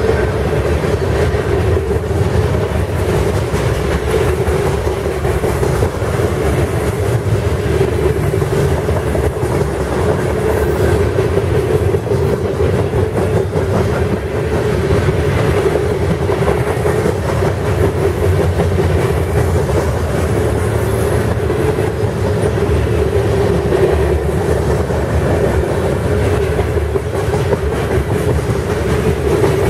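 Freight train of covered hopper grain cars rolling past close by: a loud, steady rumble and clatter of steel wheels on the rails, with a steady tone underneath.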